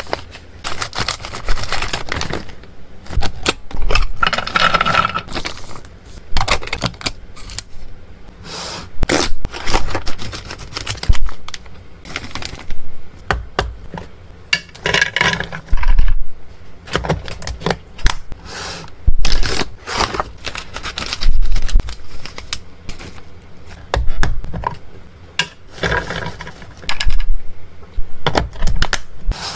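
Close-miked handling of pet-treat packaging: a plastic treat pouch crinkling, then a hard plastic storage box being tapped and clicked, with dry freeze-dried treats going into it and its snap-lock lid clips clicking shut. Irregular sharp clicks and taps run through the crinkling.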